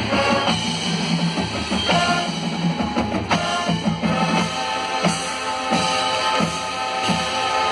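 Marching band playing on the field, with drums and percussion prominent, turning to held chords about halfway through.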